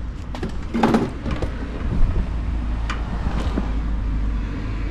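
A steady low rumble, with a few short clicks and knocks from handling the headlight parts as one is fitted into the truck's headlight opening.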